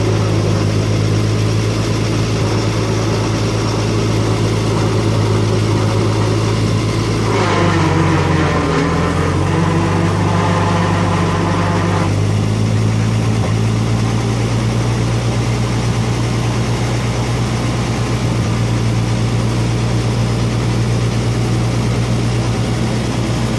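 Gasoline engine of a 1950s Yale forklift idling steadily. Starting about seven seconds in and lasting about five seconds, a louder hissing rush joins and the engine note dips, then recovers, while the hydraulic mast is worked and the forks are lowered.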